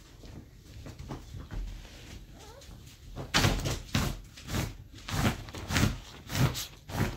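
A run of about seven dull thumps, evenly spaced a little over half a second apart, starting about three seconds in.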